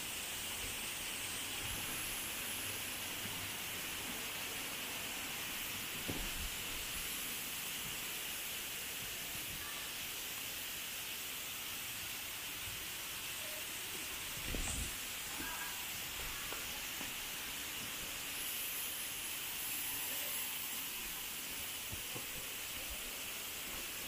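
Steady outdoor hiss of forest ambience, with a faint high steady tone above it and two soft low thumps, about six seconds in and around the middle.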